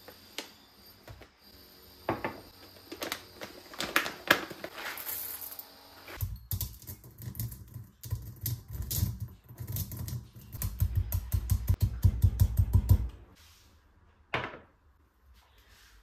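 Coffee being pounded in a mortar with a pestle to grind it for Turkish coffee. A few scattered clicks and rattles come first, then a quick, steady run of pestle strikes from about six seconds in, getting faster and louder before stopping, followed by one last knock.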